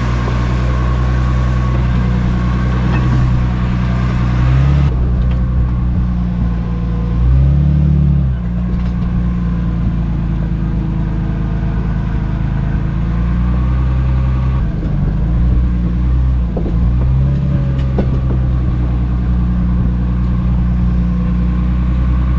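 Jeep engine running steadily while driving a dirt trail. Its note shifts briefly a few times as the throttle changes.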